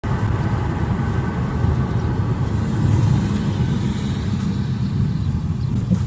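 Airliner jet engines running: a loud, steady low rumble with a faint high whine that fades out partway through.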